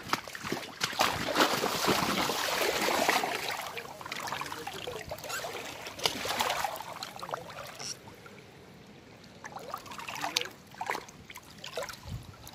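Splashing and sloshing of water in a shallow river, loudest over the first few seconds, then quieter, with a few short splashes near the end.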